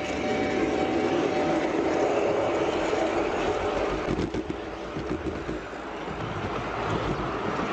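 A train running along the track: a steady noise of wheels on rails, with a faint whine that fades out in the first two seconds.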